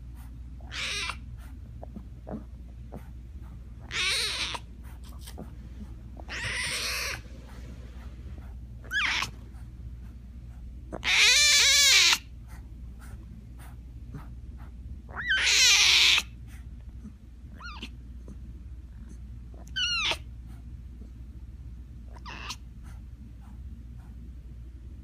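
White tiger cub trying to roar, letting out about eight short, high-pitched squalling calls with pauses between them. The loudest and longest, about a second long, comes near the middle. A steady low hum runs underneath.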